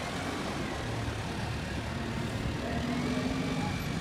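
Steady rumble of engine and traffic noise, with a few faint brief tones over it.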